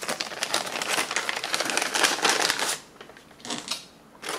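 Paper-and-plastic flameless ration heater bag crinkling as it is opened and handled: dense crackly rustling for about three seconds, then a short rustle near the end.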